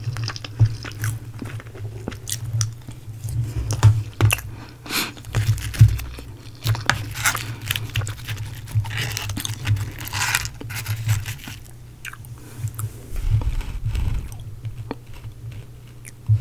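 Close-miked eating sounds: chewing and the crunch of Jollibee's crispy breaded fried chicken, with moist mouth clicks. There are bursts of crackling as the chicken is torn apart by hand.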